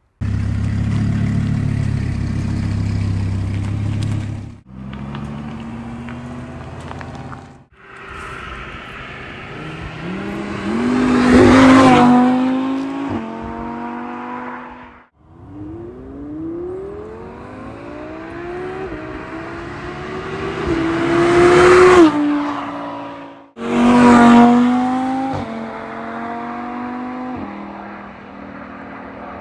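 Audi R8 V10 Plus's 5.2-litre V10 accelerating hard, its note climbing steeply to a loud peak and then dropping sharply at each upshift, three pulls in all. It opens with about four seconds of a steady, loud engine note, and the sound breaks off abruptly a few times between short clips.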